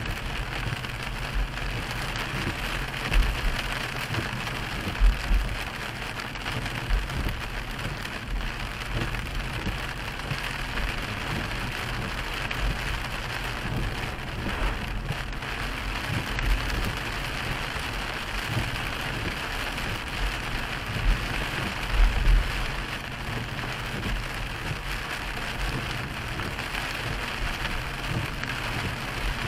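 Steady hiss of rain on a moving car's windshield and body, mixed with tyre noise on the wet road, heard from inside the car. A few brief low thumps stand out, the loudest about five seconds in and again near the twenty-two-second mark.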